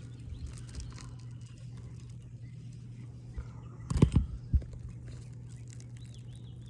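Three quick hammer knocks about four seconds in, striking a roof snake to work the nails loose under an asphalt shingle.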